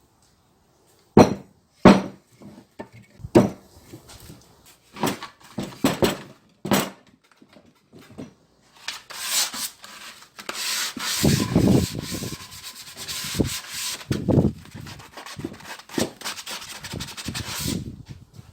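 Wood being worked for a sagae corner joint: about six separate knocks of wood on wood in the first seven seconds, then a long stretch of continuous rubbing of wood, with a few dull thumps in it.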